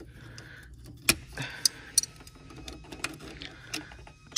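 Pliers clicking and scraping against a hose clamp and coolant hose as the line is worked loose, with a few sharp metal clicks, the loudest about a second in and another at about two seconds.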